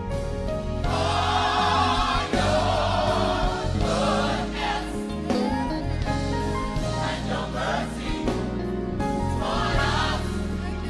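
Gospel choir singing with instrumental accompaniment: voices hold and bend sung lines over a steady low backing.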